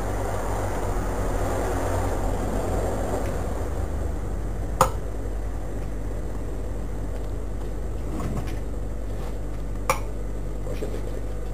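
Steady low hum and background rumble in a small shop, with two short, sharp knocks: one about five seconds in and one near ten seconds.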